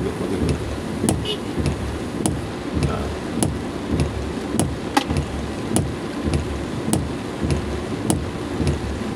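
Rain falling on a car's roof and windshield, heard from inside the cabin: scattered sharp drop clicks over a steady low rumble of the stationary car.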